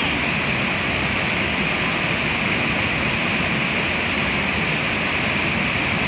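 A waterfall falling into a rocky pool: steady rushing water noise that holds an even level throughout.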